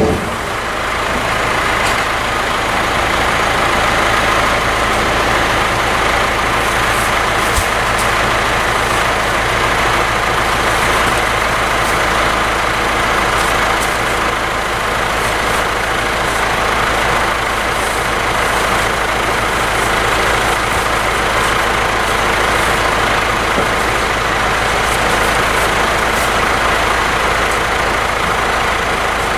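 Tractor's diesel engine idling steadily.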